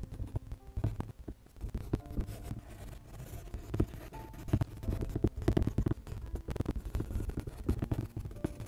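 Prismacolor colored pencil scratching across drawing paper in many quick, short strokes, over a low rumble.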